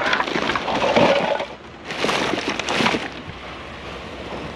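Rummaging through a curbside junk pile: two stretches of crunching, crackling handling noise as items are pulled about and moved, the second starting about two seconds in.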